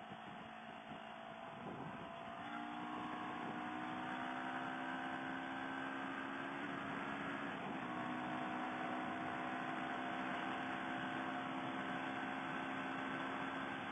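CFMoto CL-X 700's parallel-twin engine running at an even pitch in fifth gear. The engine note gets a little louder about two seconds in.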